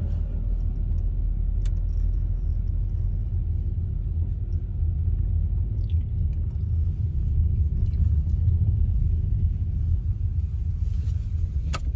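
Steady low rumble of a car driving slowly, heard from inside the cabin: engine and road noise, with a faint click near the end.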